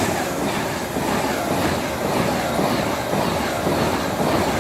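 Class 390 Pendolino electric train running past, a steady rush of wheel-on-rail noise.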